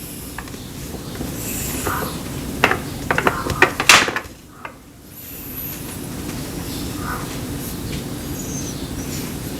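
Cutlery clicking against dishes during a meal: a run of sharp clicks and taps about three to four seconds in, a few lighter ones later, over a steady low hum.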